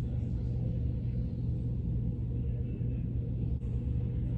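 Steady low hum that holds the same pitch throughout.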